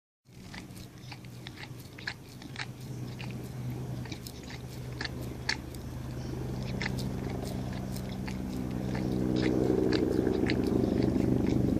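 Chow chow licking and biting a frozen dog ice lolly, with irregular wet clicks and crunches. A steady low hum underneath grows louder over the last few seconds.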